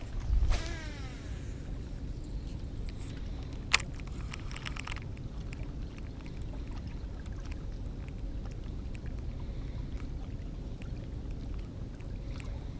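Baitcasting reel spool whirring as line pays out on a cast, its pitch falling over about a second. A sharp click comes about four seconds in, followed by a second of rapid ticking, over a steady low rumble.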